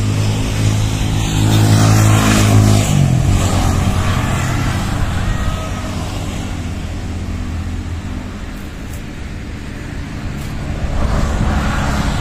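Road traffic: a motor vehicle's engine running loudly close by for the first few seconds, rising briefly as it goes past. After that comes a lower steady hum of traffic, which swells again near the end as another vehicle approaches.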